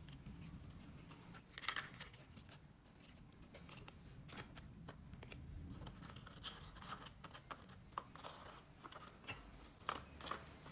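Paper and card being handled: faint crinkles, creases and light clicks as a kraft-paper lid is folded and fitted onto a paper box, with a few sharper clicks near the end.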